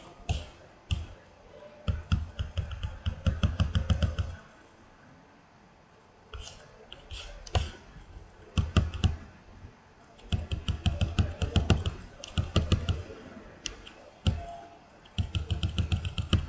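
Typing on a computer keyboard: three runs of quick keystrokes a few seconds each, with scattered single clicks between them.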